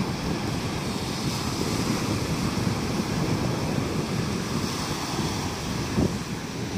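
Surf breaking and washing onto a sandy beach, mixed with wind buffeting the microphone in a steady low rumble. A brief thump comes near the end.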